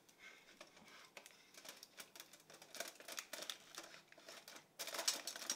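Aluminium foil crinkling and rustling in small crackles as a foil-wrapped pudding mould is pushed down into a stainless steel pot. The rustle gets louder near the end.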